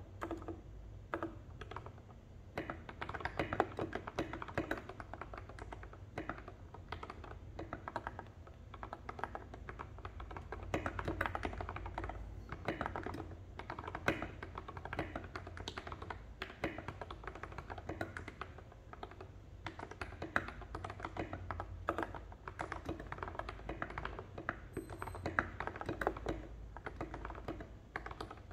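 Mechanical keyboard with lubed Gateron Milky Yellow linear switches and SA-profile keycaps being typed on steadily, a continuous stream of keystrokes.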